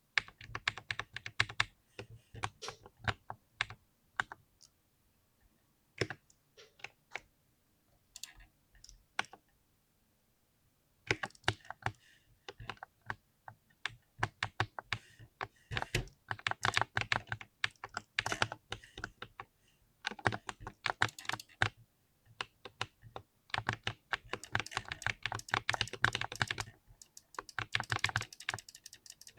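Mechanical keyboard typing: rapid bursts of sharp key clicks, with a short pause about a third of the way in.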